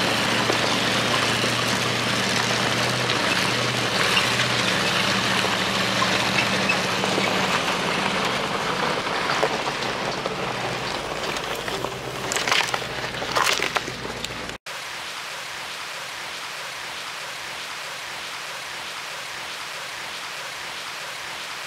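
Off-road vehicle driving slowly along a dirt trail, heard from inside the cab: steady engine and tyre noise with a few clicks and knocks near the end. Then, after a sudden cut, a river running over a shallow stony bed as an even, steady rush of water.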